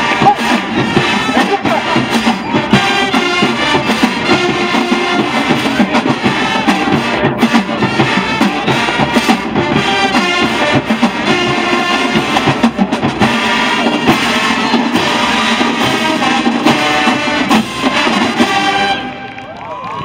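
High school marching band playing: brass with sousaphones over a drumline of snare and bass drums, cutting off about a second before the end.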